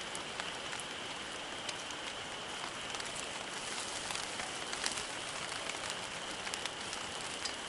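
Campfire burning: a steady hiss with scattered sharp crackles and pops.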